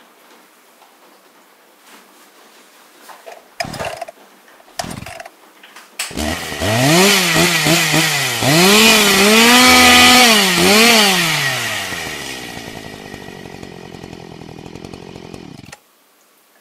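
Husqvarna two-stroke petrol chainsaw: two short bursts of noise, then the engine starts about six seconds in and revs up and down several times. It is loudest about ten seconds in, then winds down and cuts off suddenly near the end.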